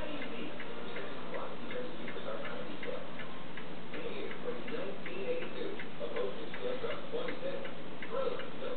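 A steady, regular ticking, about two or three ticks a second.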